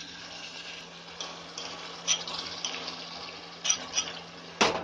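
Green herb-and-chili paste sizzling as it goes into hot mustard oil and fried onions in a kadhai. A few clicks and knocks of a utensil against the pan, the loudest near the end.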